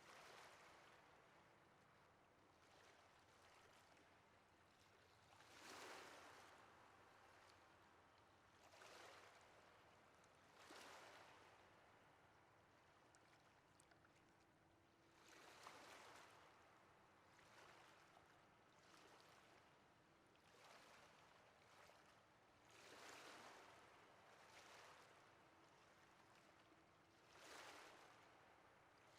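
Faint ocean waves washing on a shore, with a soft surge of surf every few seconds over a steady hiss of water.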